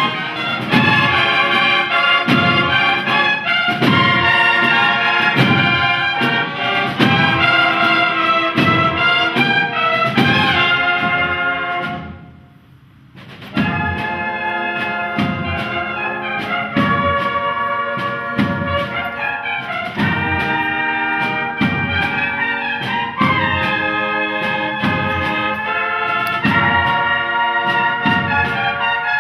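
A cornet and drum band plays a processional march: bugle-like cornets carry the melody over a steady drum beat. About twelve seconds in the music breaks off for a second or so, then picks up again.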